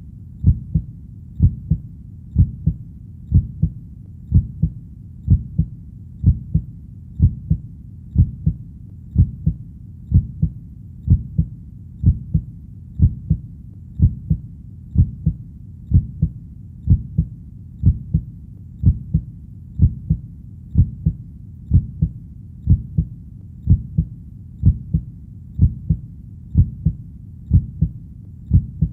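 Human heartbeat: low, dull thumps that come in close pairs (lub-dub) and repeat at a slow, even pace.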